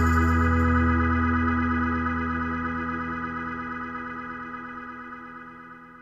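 Background music ending on one long held keyboard chord that fades away.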